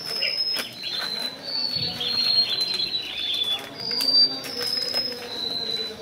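A bird singing a string of high, clear whistled notes. Each note is held about half a second, and they hop up and down in pitch one after another.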